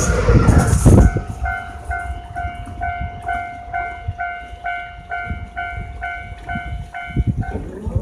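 Yamagata Shinkansen train rushing past a level crossing, loudest in the first second. Then the crossing's electronic warning bell dings about twice a second and stops shortly before the end.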